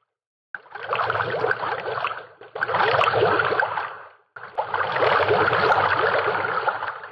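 Sound effect of a TV channel's animated logo sting: dense, crackly rushing noise in three surges, with short breaks about two and a half and four seconds in.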